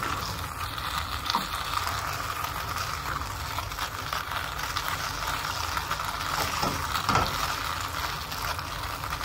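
Vegetable Manchurian balls and sauce sizzling in a non-stick pan while being stirred and tossed with a spatula. A few short knocks or scrapes of the spatula against the pan come now and then.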